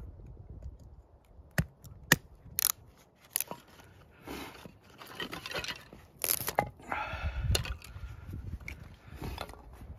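Bushcraft knife splitting and working thin sticks of kindling: a few sharp cracks and snaps of wood in the first few seconds, then longer scraping and tearing sounds of wood against the blade.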